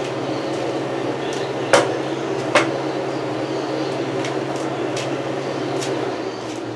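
A machine running nearby with a loud, steady low hum that eases off near the end. Two sharp knocks sound a little under a second apart, about two seconds in.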